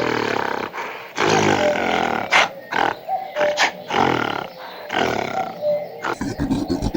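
An animal growling in several long, drawn-out calls; music starts near the end.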